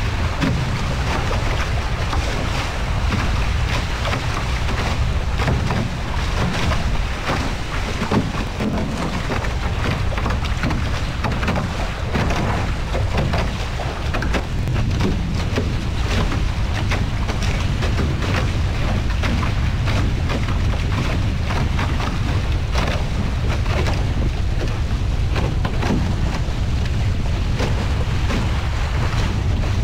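Steady wind buffeting on the microphone of a GoPro mounted on a foiling A-Class catamaran under sail, a heavy low rumble, over the hiss of water spray off the boat.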